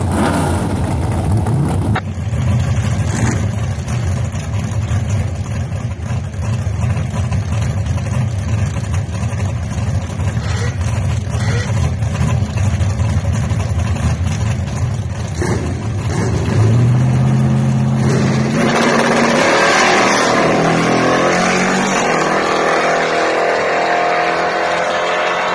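Drag-racing Chevy S-10 pickup's engine running steadily at the starting line. About two-thirds of the way in it is held at a steady high rev, then launched, with the revs climbing in several steps as it shifts through the gears.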